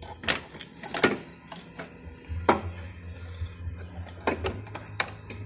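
Scattered sharp metal knocks and clicks, about five of them, as a replacement engine mount is worked by hand into place between the engine and its bracket. A steady low hum runs underneath.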